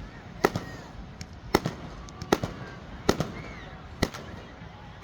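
Fireworks going off: five sharp bangs about a second apart, each followed by a few smaller cracks.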